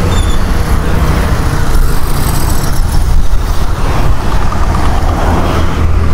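Road traffic noise from cars and motor scooters, with a steady low rumble, heard from a bicycle riding along the road.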